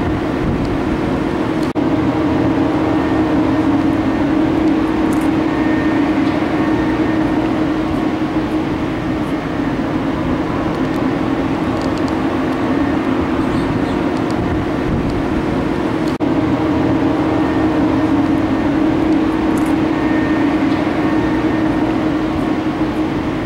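Steady engine drone and traffic noise on a city street, a constant low hum with a few steady tones above it. The sound breaks off briefly about two seconds in and again about sixteen seconds in, then picks up the same way.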